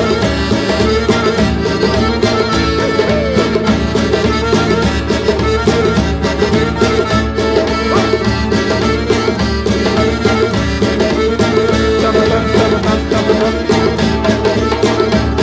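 Instrumental passage of a Roma folk song: a piano accordion plays the melody over a steady hand-drum (djembe) beat and acoustic guitar, with an even, continuous rhythm.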